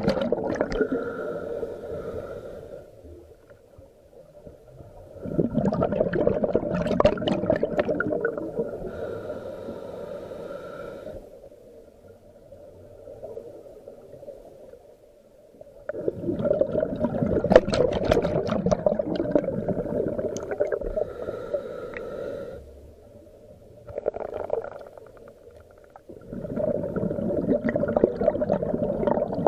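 Scuba diver's breathing heard underwater through the regulator: long bubbling bursts of exhaled air every ten seconds or so, each ending in a brief hiss, with quiet stretches between breaths.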